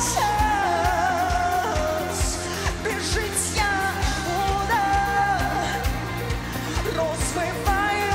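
A woman's lead vocal singing a pop-rock song over a full band backing with a steady drum beat.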